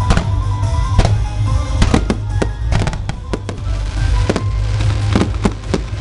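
Fireworks going off in an irregular series of sharp bangs, several a second at times, over loud music with a heavy bass.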